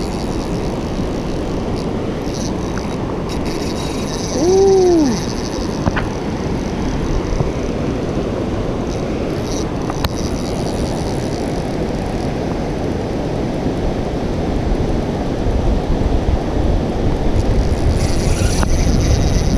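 Steady wind rumble on the microphone, growing stronger in the last few seconds, with faint high whirring now and then from the spinning reel as a fish is reeled in. A short rising-and-falling vocal 'ooh' comes about four and a half seconds in.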